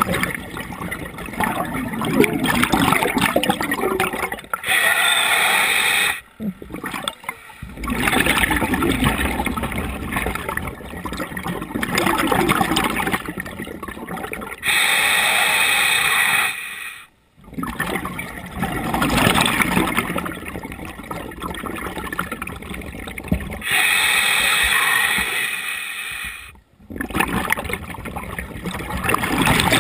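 Scuba diver breathing through a regulator underwater: a steady hiss of inhalation three times, about nine seconds apart, each followed by a short pause and then a long bubbling burble of exhaled air.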